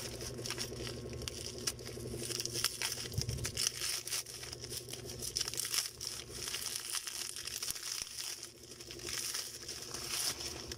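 Plastic bubble wrap around bars of soap crinkling and crackling as hands work it loose, an irregular run of rustles and small snaps.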